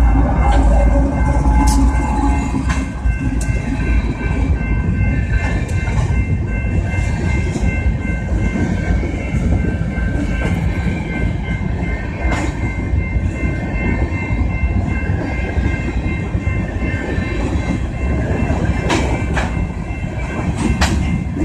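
BNSF freight train passing over a road crossing. Diesel locomotives rumble heavily in the first couple of seconds, then covered hopper cars roll by steadily, their wheels clacking over the rail joints.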